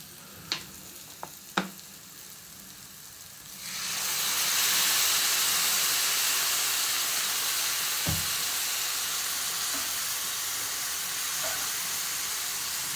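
Masala frying in a pan: a metal spatula clinks against the pan a few times, then about four seconds in a loud sizzle starts abruptly and keeps on steadily.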